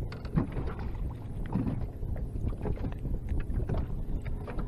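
Wind rumbling on the microphone and choppy water lapping against a small fishing boat's hull, with a few light clicks and knocks from handling the fish and tackle.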